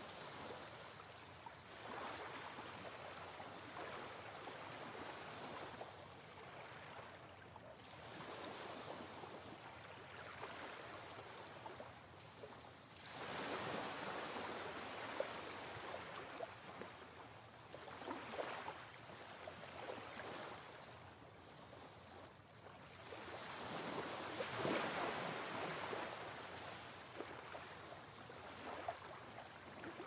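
Ocean surf: waves washing in and drawing back, the rush of water swelling and fading every few seconds.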